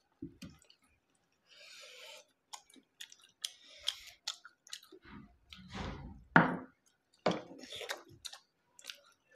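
Chewing and mouth sounds of people eating steamed momo dumplings, with scattered small clicks throughout and a couple of louder sounds about six seconds in.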